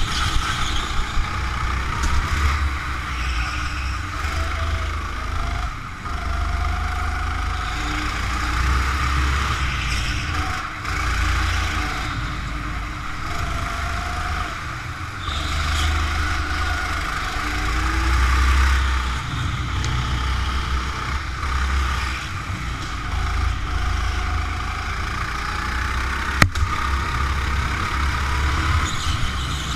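Go-kart engine running on a lap, heard from the driver's seat, its pitch rising and falling as the kart speeds up and slows for corners. A single sharp click sounds near the end.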